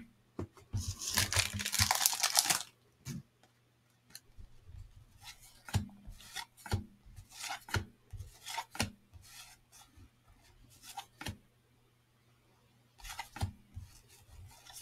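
Cellophane wrapper of a 1989 Fleer baseball card pack torn open, lasting about two seconds, then cards slid off the stack one by one in a series of short soft rubs and taps of card stock.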